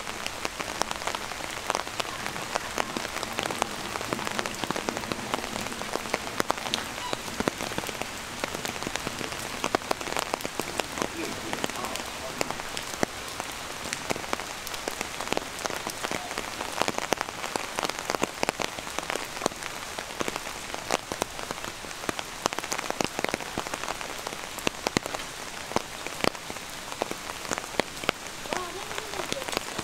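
Steady rain falling, with many sharp, close drop hits spattering throughout.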